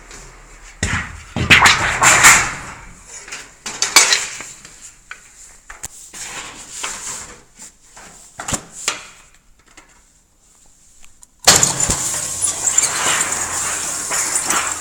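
Sheet-metal drip-edge flashing being worked: irregular metal clanks, clicks and scraping, a short lull, then a continuous harsh metallic noise starting near the end.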